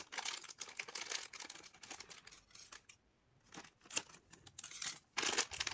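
Thin plastic bag crinkling and rustling in the hands as it is opened, with a short pause about three seconds in and a louder burst of crinkling near the end.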